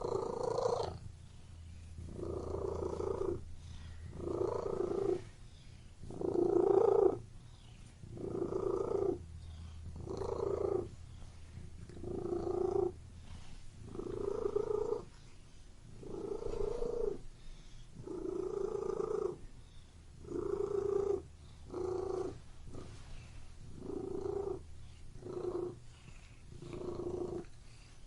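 Domestic cat purring close up, swelling and fading in a steady rhythm about every two seconds with its breathing, with a softer low purr carrying on between the swells.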